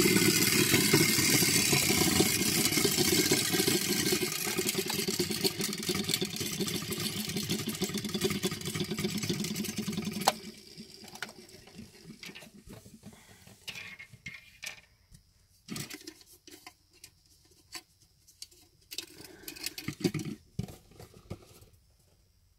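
A vintage Feber Donald Duck mechanical toy's mechanism running with a fast, loud whir, which stops suddenly about ten seconds in. After that, scattered light knocks and taps as the toy and its cardboard box are handled.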